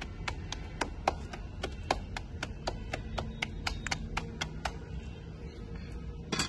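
Dough for a radish-stuffed paratha being patted flat between the palms by hand: a run of quick slaps, about four or five a second, that stops about two-thirds of the way through. One louder knock comes near the end.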